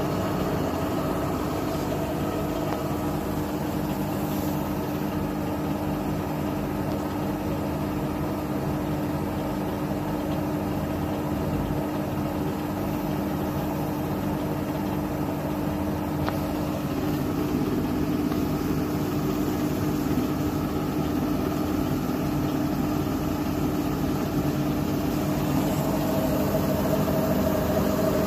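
Bosch WAT28490NL front-loading washing machine spinning a load on its 1400 rpm spin-only cycle: a steady motor hum and whine from the drum at a constant high speed, swelling slightly about two thirds of the way in.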